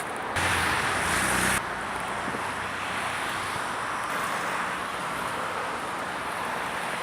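Strong wind buffeting the microphone over steady road traffic noise, with a louder burst lasting about a second, half a second in.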